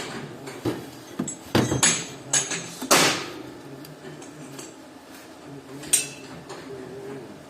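A handful of sharp metallic clanks and knocks, like tools or metal parts being handled and struck, loudest about three seconds in and once more about six seconds in, over a faint steady hum.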